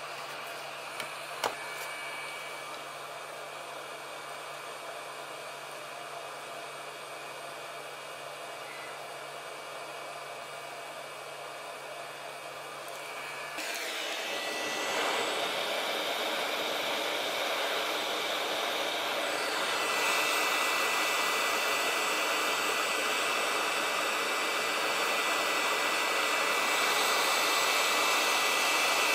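Steady whooshing machine noise with a faint high whine. It gets louder about halfway through and again a few seconds later, with two short clicks about a second in.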